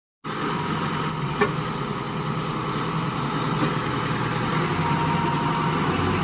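A heavy engine running steadily at idle, with a single short knock about a second and a half in.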